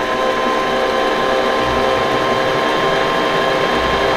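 Electric kitchen mixer motor running at a steady speed with a constant whine, churning a thick oat cookie dough in its bowl.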